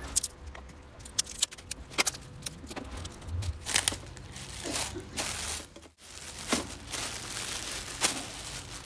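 A thin plastic bag packed with chopped herbs crinkling and rustling as it is handled, with many sharp, irregular crackles.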